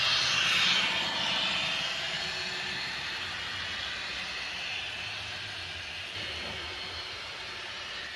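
H0 scale model trains running past: the steady rolling rumble and rattle of wheels on the track, loudest in the first second or so as the trains pass closest, then slowly fading.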